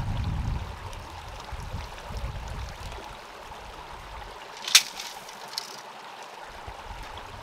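Steady running-water haze, like a small stream, with gusts of wind on the microphone during the first few seconds and a single sharp click a little under five seconds in.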